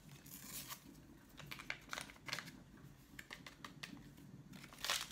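Small paper sachets crinkling and rustling as powder is emptied from them into a stainless steel mixing bowl: faint, irregular crackles, with a louder rustle near the end.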